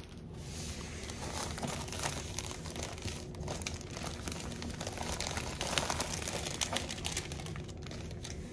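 Thin crinkly wrapping being unfolded and smoothed flat by hand: an irregular run of crinkling and rustling.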